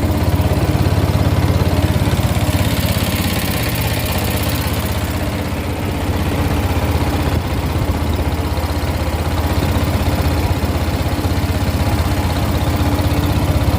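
An engine running steadily at idle with a fast, even firing beat, just after being started.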